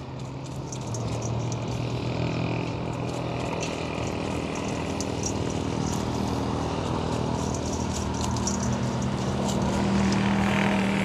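A steady engine hum, like a motor vehicle running nearby, its pitch stepping up near the end, with faint light ticks over it.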